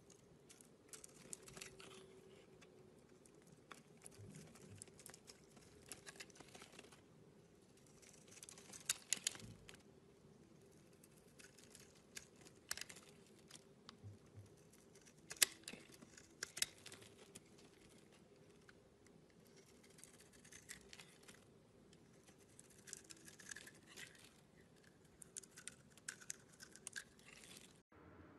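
Utility knife blade shaving and scraping a translucent orange bar of soap, giving irregular crisp crackling and scratching as shavings peel off, with a few louder crackles. The sound cuts off abruptly near the end.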